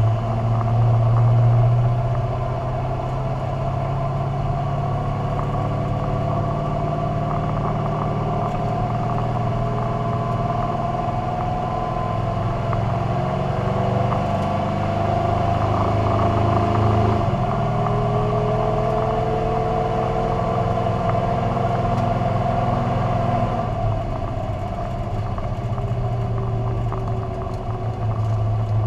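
Carbureted car engine running at low, fairly steady revs, its pitch drifting slightly up and down, a little louder near the start and again around the middle.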